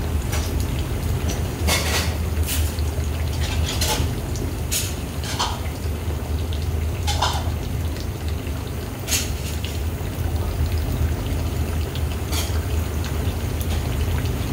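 Broth bubbling in a large pan of simmering beef brisket and offal, with irregular bubble pops over a steady low hum.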